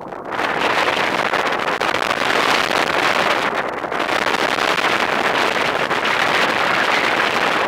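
Steady rushing wind noise on the camera microphone from the airflow of a paraglider in flight, easing briefly about three and a half seconds in.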